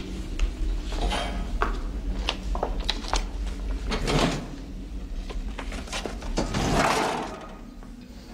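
A metal pass-through tray in a cell's glass wall being slid and handled: a run of clicks and clacks, then two sliding rushes about four and seven seconds in, the second the longer. A steady low hum runs underneath.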